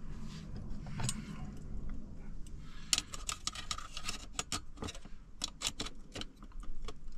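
Small metal parts of a backpacking gas-canister stove clicking and clinking as they are handled and fitted onto the burner. The clicks come thick and irregular, several a second, from about three seconds in.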